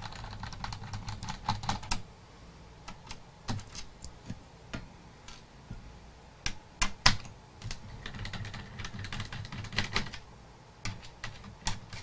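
Irregular small clicks and taps of a screwdriver and fingers on the metal frame of an opened Dell Inspiron M5010 laptop as the screws under the keyboard are taken out, with a few sharper clicks about seven seconds in.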